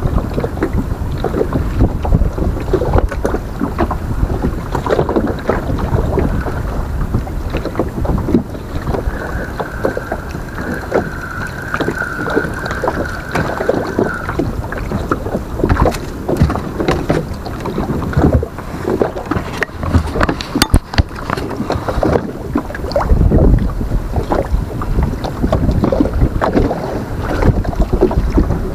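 Wind buffeting the microphone over choppy water slapping and knocking against a small boat's hull, with irregular splashes and thuds. A faint steady high tone runs for a few seconds near the middle.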